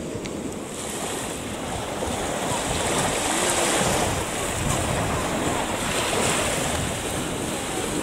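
Small Black Sea waves breaking and washing up on a sandy shore, the surf swelling to a peak a few seconds in, with wind rumbling on the microphone.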